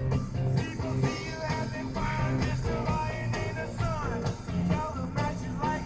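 Rock and roll song playing, with guitar, a steady beat and singing.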